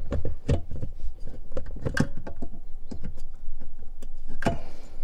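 Irregular clicks, knocks and rattles of a Bose car audio amplifier's metal housing and the surrounding dashboard plastics as it is worked by hand into its mounting place under the dash, with a louder knock about four and a half seconds in.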